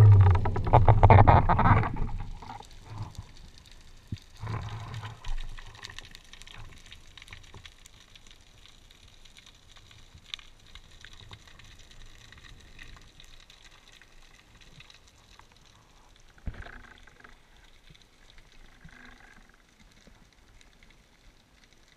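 Underwater sound heard through a submerged camera housing: loud water rush for the first two seconds, then quiet underwater ambience with faint scattered clicks, a brief swell about four seconds in and a single knock near sixteen seconds in.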